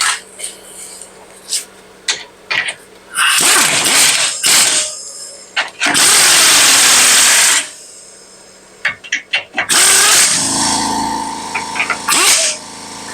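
Power tool driving bolts in short bursts, with one steady run of about a second and a half, between sharp metallic clicks and clinks of hand tools.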